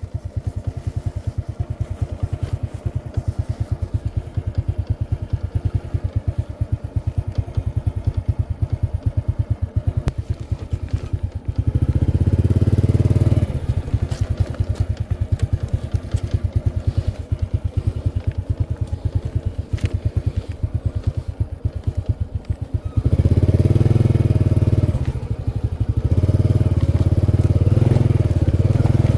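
Small single-cylinder engine of a Honda step-through motorcycle running with a fast, steady low pulse. It grows louder under throttle for a couple of seconds near the middle and again for the last several seconds.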